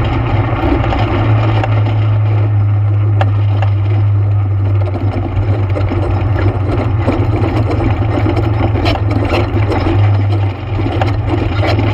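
ATV engine running steadily under way, a strong, even low drone with a few sharp knocks about three and nine seconds in.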